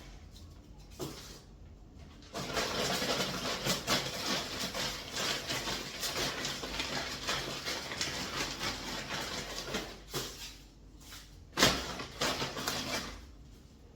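Grocery packaging rustling and crinkling as produce is handled, a dense crackle lasting about eight seconds, followed by a sharp knock and a few lighter handling noises near the end.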